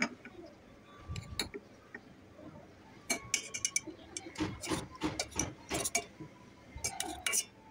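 Metal spoon clinking and knocking against a steel pot as syrup-soaked gulab jamun are scooped. There are a couple of light clinks about a second in, then a quick run of clinks from about three seconds in that stops shortly before the end.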